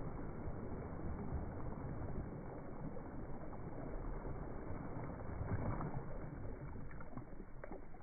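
Small, gentle waves lapping and washing steadily onto a sandy shore, with a couple of faint ticks near the end.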